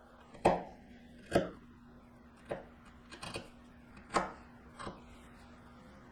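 Wood chisel struck with a mallet, chopping waste out of a walnut dovetail pin board: about six sharp, irregularly spaced knocks, the loudest near the start.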